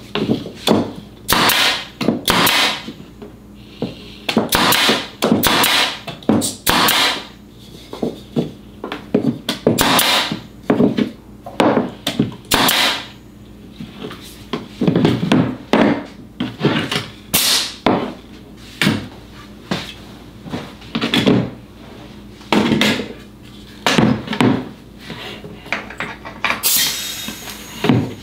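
Pneumatic nail guns running off a cordless air compressor, starting with a brad nailer: many sharp shots driving nails into wood, often a few in quick succession, with a louder, longer blast near the end.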